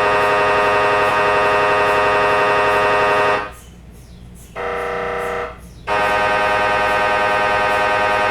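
MRI scanner buzzing loudly in a steady electronic tone. The buzz drops out about three and a half seconds in. A lower, quieter tone sounds for about a second, then the loud buzz comes back near the six-second mark.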